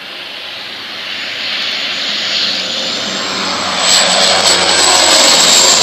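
Low-flying twin-engine amphibious water bomber coming overhead, its engine noise growing louder with a high whine that climbs slightly in pitch. About four seconds in it grows loudest and rougher as the dropped water load crashes onto the road.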